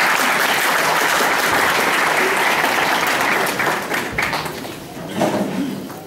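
Audience applauding, many hands clapping at once, dying away about four to five seconds in.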